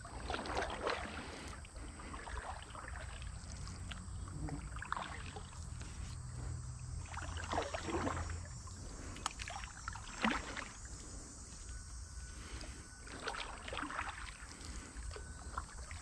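Canoe paddle strokes dipping and pulling through calm river water, a swish every one to three seconds, over a steady low rumble.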